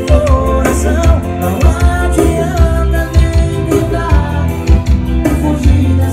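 Loud music with singing and a strong bass beat, played through a car sound system.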